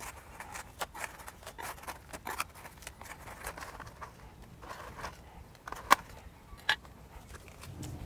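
Escape roots of a ficus benjamina being cut and pulled free around a container sunk in a larger pot: irregular clicks and snaps of pruning and tearing roots and shifting damp soil, with two sharper snaps about six and seven seconds in.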